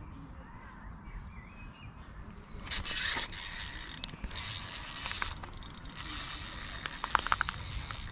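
Spinning fishing reel being wound, a fast run of fine clicking from its gears that starts about two and a half seconds in.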